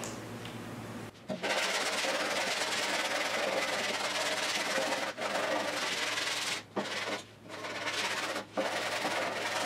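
Hand sanding of body filler on a steel car door with a long sanding block: a continuous scratchy rasp of sandpaper that starts about a second in and breaks off briefly a few times.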